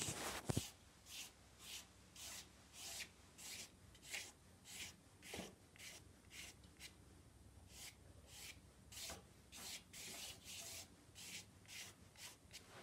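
A finger repeatedly flicking the paint-loaded bristles of an old toothbrush, about two short rasps a second, spattering watercolour onto the paper to texture a painted beach.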